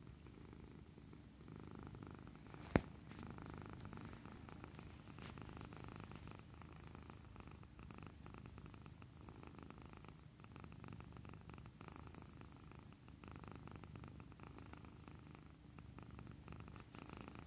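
Domestic cat purring close up: a low, continuous purr that swells and eases every couple of seconds. A single sharp click sounds a little under three seconds in.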